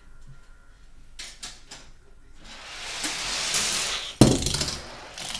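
A toy racer running down a plastic track: a few light clicks, then a rolling rush that grows louder for about a second and a half, ending in a loud knock about four seconds in.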